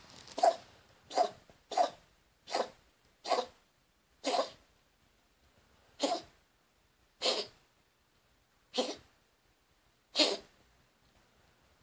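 A domestic cat coughing in a long run of about ten short, sharp hacks, about two a second at first and then slowing to one every second or so. The owner suspects a respiratory problem.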